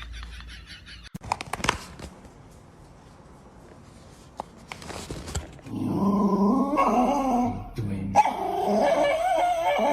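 A dog making loud, long, wavering growl-like vocalizations in the second half, after a few short knocks about a second and a half in.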